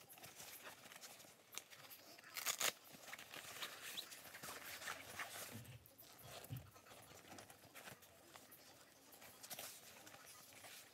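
Faint rustling and crinkling of wrapping as a laptop bag is unwrapped, with a louder burst of crinkling about two and a half seconds in.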